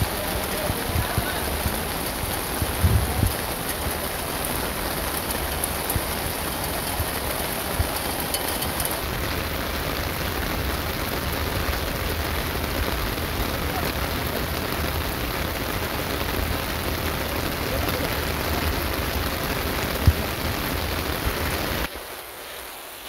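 Heavy thunderstorm downpour, rain falling steadily and hard. Near the end the sound drops suddenly to a quieter rain.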